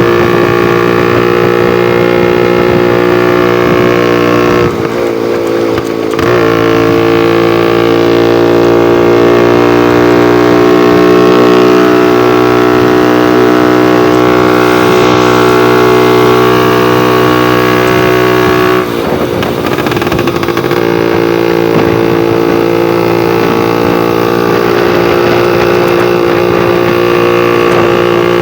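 Vespa scooter engine running at a steady, even pitch. Its note dips and wavers briefly twice, about five seconds in and again around nineteen seconds, then settles back to the same steady pitch.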